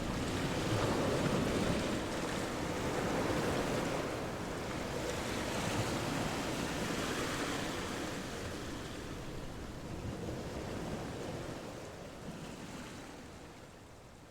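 Rushing road and wind noise from a car driving, an even hiss with no engine note standing out, growing fainter over the last few seconds.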